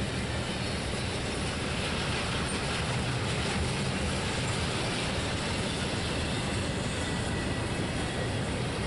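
Double-stack intermodal freight train's loaded well cars rolling past: a steady rumble of steel wheels on the rails.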